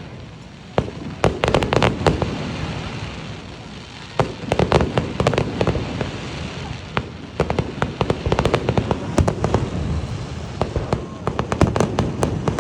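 Aerial fireworks bursting: clusters of sharp bangs every couple of seconds, over a continuous low rumble.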